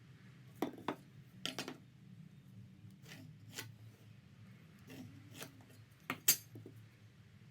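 Scattered light clicks and knocks of small hard objects, about eight in all with the loudest near the end, over a low steady hum.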